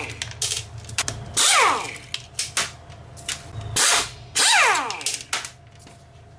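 A cordless drill backs out the bolts holding a lawn mower engine's air filter housing, in short bursts that each end in a falling whine as the motor spins down. There are two main bursts, about a second and a half in and again near four and a half seconds, with light clicks and rattles between them.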